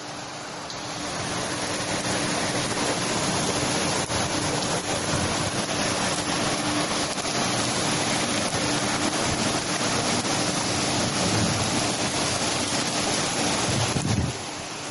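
Strong storm wind rushing through trees and tall grass, a steady loud rush that eases suddenly near the end.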